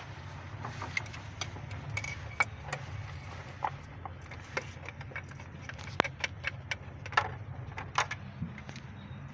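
Irregular metallic clinks and knocks of hand tools and engine parts being handled, a few sharper strikes among them, over a steady low hum.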